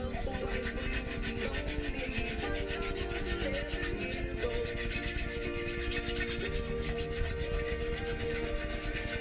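Metal yacht steering pedestal being rubbed down by hand with a flat abrasive block: rapid, even back-and-forth rasping strokes.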